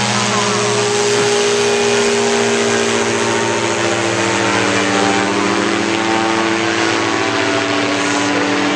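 Powered parachute's engine and propeller running in flight, a steady loud drone whose pitch drifts slowly up and down.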